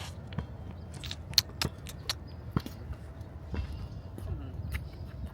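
A basketball bouncing on an outdoor court: a handful of sharp, irregularly spaced thuds over a steady low rumble.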